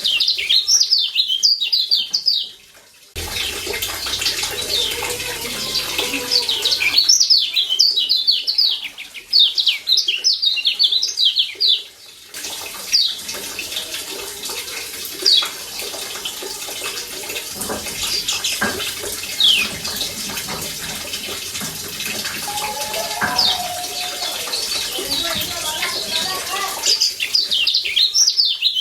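Yellow white-eye (kecial kuning) giving its 'ciak' call: fast runs of short, high, downward-sweeping chirps at the start, again from about seven to twelve seconds, and near the end, with single chirps in between. A steady hiss of running water sits underneath.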